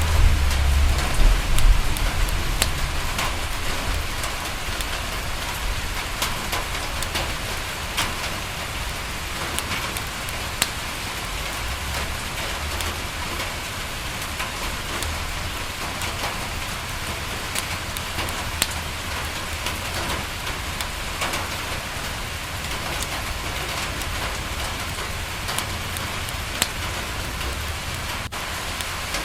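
Steady rain falling on a window, with scattered sharp ticks of single drops. A low rumble is strongest in the first two seconds, then fainter and intermittent.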